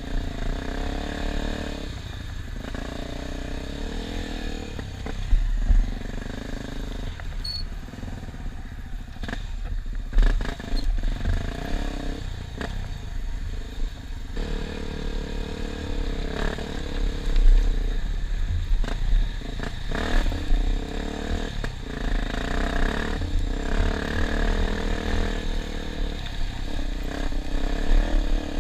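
Enduro dirt bike engine running while being ridden over rough ground, its revs rising and falling, with occasional knocks and clatter.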